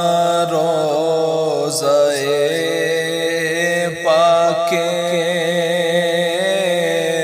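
Naat intro: a voice singing a long, wavering wordless melody over a steady low drone.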